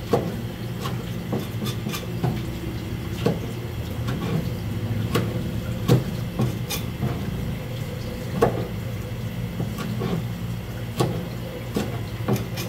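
Kitchen knife striking a plastic cutting board as gizzard shad are cut up: irregular sharp knocks, one or two a second, over a steady low hum.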